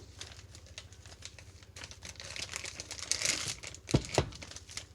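Plastic bag of hamburger patties crinkling and rustling as it is handled and its twist tie worked at, with two sharp knocks in quick succession about four seconds in.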